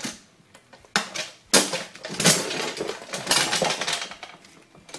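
Metal clicks, rattling and scraping of a Mercedes W204 C-Class front brake pad and caliper being handled as the pad's retaining clip is pushed into the caliper piston. There are sharp knocks at the start, about a second in and about a second and a half in, then a dense run of scraping and clinking that eases off near the end.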